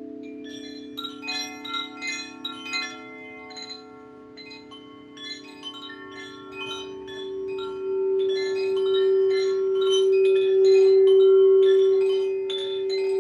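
Chimes tinkling in clusters of bright, overlapping notes from about a second in, over the steady hum of a crystal singing bowl that swells louder in the second half.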